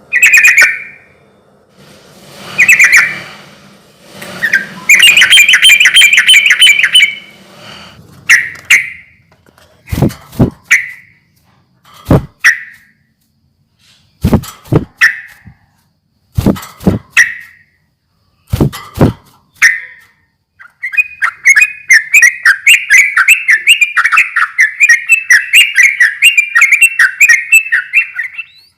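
Yellow-vented bulbul (trucukan) singing: short bubbly phrases with pairs of sharp clicks between them, then a long, fast run of chattering notes over the last seven seconds.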